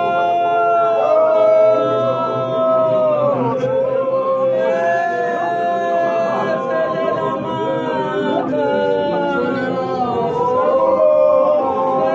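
A congregation singing a cappella: many voices in harmony, holding long notes that slide downward at the ends of phrases.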